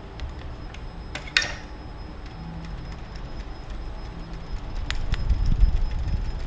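Bicycle freewheel hub ticking as the bike is pushed along, with one sharp rattle about a second and a half in. A low rumble from the tyres rolling on the hard floor grows louder near the end.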